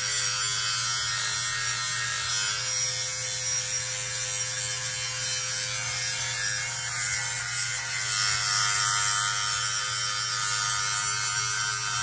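Electric hair clippers running with a steady buzz as the blade is drawn over the scalp, cutting already very short hair.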